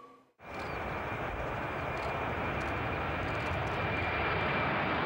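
Twin-engine jet airliner passing overhead as it climbs, its engines making a steady loud rush with a thin high whine above it. It starts suddenly about half a second in, after a moment of silence.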